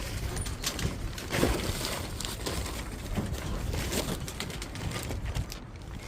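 Strong wind buffeting the microphone, with a scatter of small crunching clicks from cats chewing dry kibble.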